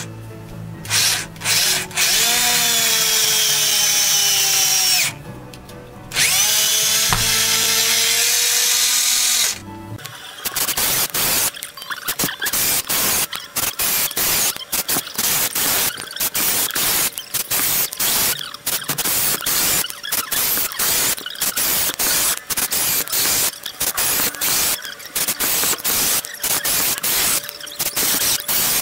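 Makita 6093D 9.6-volt cordless drill driving 2-inch screws into wood and backing them out. The motor whines under load in two runs of a few seconds each, its pitch shifting as the screw goes in. It then gives way to a long stretch of fast, stuttering chatter.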